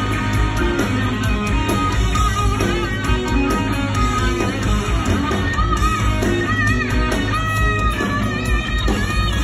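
Live rock band playing loudly: electric guitar lead over drums and bass. From about halfway through, the guitar holds bent, wavering high notes.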